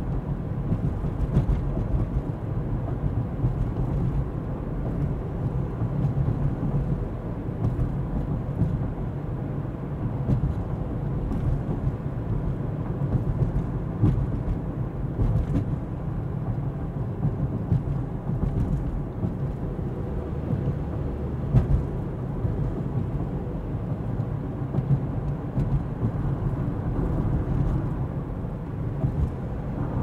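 Car driving on the road: a steady low rumble of tyre and engine noise, with a few faint knocks from the ride.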